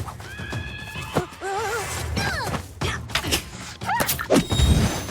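Cartoon action soundtrack: background music under a string of whack and crash sound effects, with gliding pitched effects in between. A heavy low thud near the end is the loudest hit.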